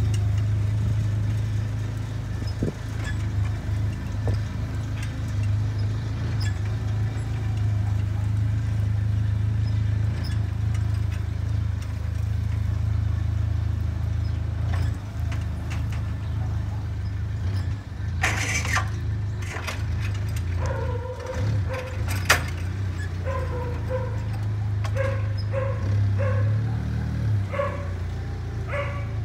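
Forklift engine running steadily under the load of a nearly one-ton paper cutter. From about two-thirds of the way in, a dog barks repeatedly.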